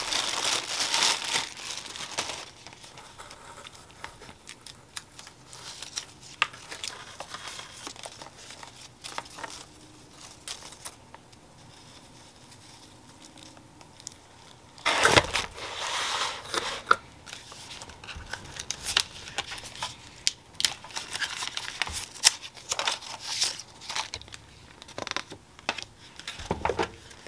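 Clear plastic packaging bags crinkling and rustling as they are handled and opened, in several bursts with quieter handling between.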